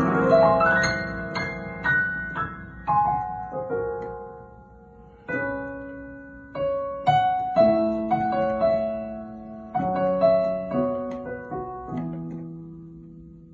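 Solo piano playing a short descriptive children's piece: phrases of struck notes and chords, each ringing and decaying, ending on a low chord about twelve seconds in that is held and fades away.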